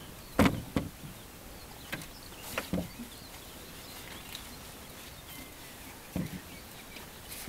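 Monofilament double-funnel fyke net being handled over the side of a small boat: about six scattered knocks and clatters as its hoops and gear bump the boat, over a steady low background noise.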